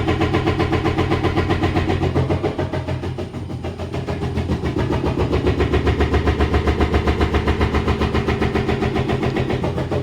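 Samsung fully automatic top-load washing machine spinning loudly, a steady hum with a rhythmic knocking about four times a second. The technician puts it down to a broken drum hub with bad bearings or to failing suspension. On opening the machine, one leg of the hub is found cracked.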